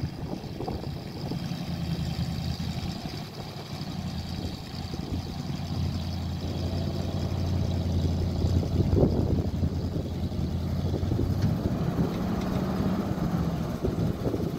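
International Harvester Scout's engine running at low speed under load while towing another Scout, its pitch stepping up for a couple of seconds about three-quarters of the way through.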